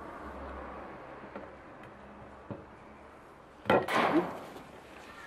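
Handling noise from a small camcorder on a mini tripod stand: a few faint clicks, then about two-thirds of the way in a sharp knock followed by a brief rustle.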